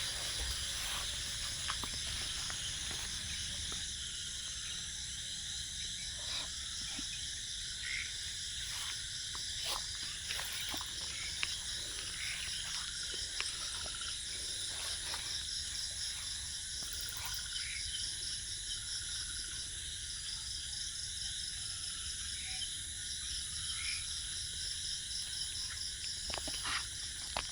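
Steady chorus of night insects trilling in high, fast-pulsing tones, with occasional faint clicks and rustles.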